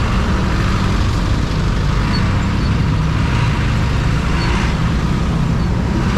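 Steady engine and road noise heard from a motorcycle moving slowly through heavy traffic beside trucks: a continuous low rumble of engines.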